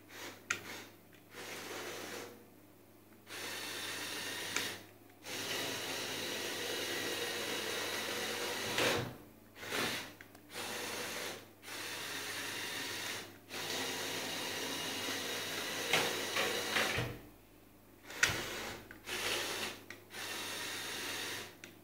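Small electric motor of a Lego remote-control boat whirring in about ten bursts, each from under a second to a few seconds long, as it is switched on and off. A few sharp clicks fall between the bursts.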